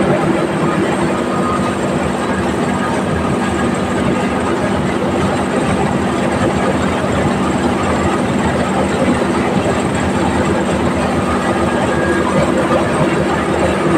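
Motorised rice thresher running steadily: a continuous engine drone with a dense rattling noise over it.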